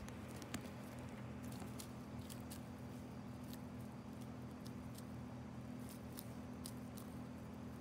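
Hens pecking at spinach leaves on bare dirt: scattered soft pecking ticks, the sharpest about half a second in, over a steady low hum.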